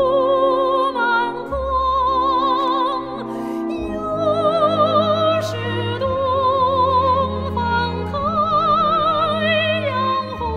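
A female operatic soprano singing a slow Chinese art song, holding long notes with wide vibrato, over instrumental accompaniment.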